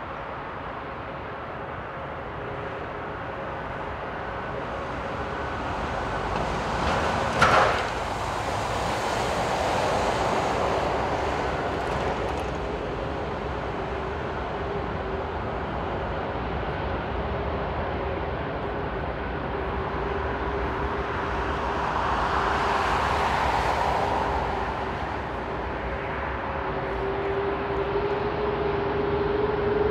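Jet airliner engines running at taxi power: a steady whine with two held tones over a rushing noise. There is one short sharp noise about seven and a half seconds in, and near the end the lower tone rises slowly as the engines spool up.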